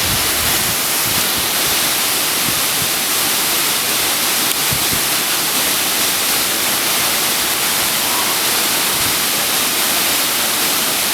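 Waterfall's falling water rushing, a steady, loud, even hiss.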